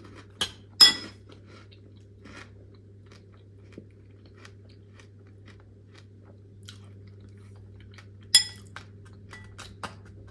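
Close-miked chewing and crunching of freeze-dried fruit in milk, with many small crackles. A spoon clinks sharply against the dish twice, about a second in and near the end, each clink ringing briefly.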